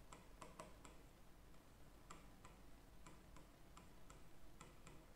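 A marker writing on a whiteboard: a run of faint, irregular ticks and taps as the tip makes its strokes, in near silence.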